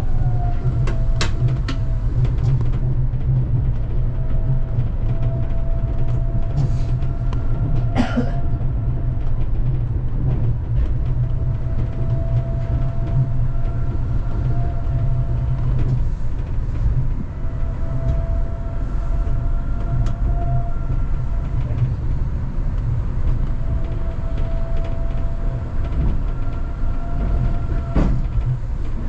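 Kanazawa Seaside Line rubber-tyred automated guideway train running, heard from inside the car. A steady low rumble is joined by a faint whine of steady pitch that comes and goes, with a few sharp knocks about a second in, around eight seconds in and near the end.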